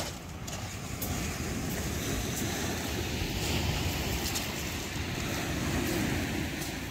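Steady rushing outdoor noise: wind buffeting the microphone, with the sea on a shingle beach behind it.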